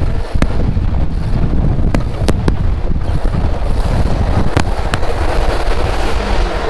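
1984 Toyota pickup turning a donut on dirt: engine pulling and rear tyre rolling over the ground, with heavy wind buffeting on the microphone held out by the rear wheel and a few sharp clicks. The donut test shows the rear differential is open, not welded.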